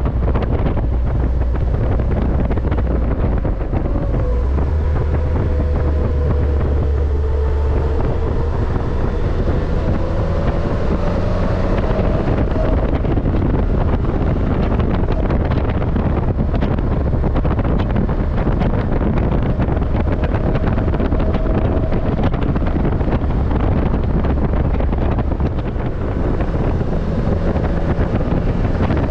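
Morgan Super 3's Ford 1.5-litre three-cylinder engine running on the move, its note dipping and rising slowly, under heavy wind rush across the open cockpit and microphone.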